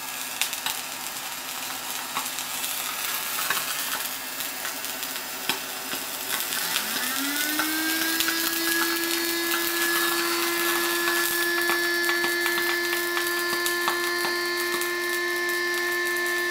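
Homemade high-voltage plasma arc crackling and sizzling where it burns into the hot charcoal-gas and hydrogen flame, a dense run of small snaps and hiss. About six and a half seconds in, a hum rises in pitch over a second or so and then holds steady.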